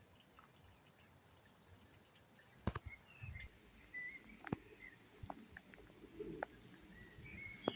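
Quiet outdoor ambience with a few faint, short bird chirps and several scattered sharp clicks.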